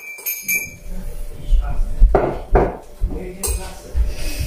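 Kitchen clatter: dishes and utensils knocking and clinking on a counter, with dull low thumps in between.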